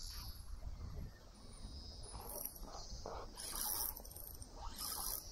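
Fishing reel whirring in a few short bursts in the second half, over a low steady rumble of wind on the microphone.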